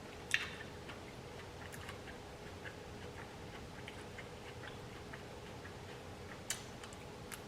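Faint close-up eating sounds: soft chewing and small wet mouth clicks, scattered irregularly, with two sharper clicks, one just after the start and one near the end.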